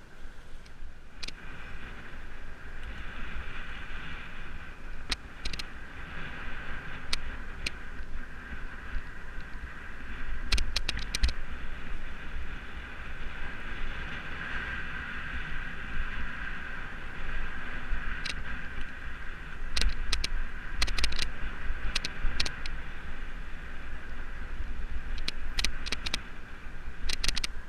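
Mountain bike ridden fast along a dirt singletrack: steady rumble of knobbly tyres on the trail and wind on the bike-mounted microphone, with scattered sharp clicks and rattles from the bike over bumps.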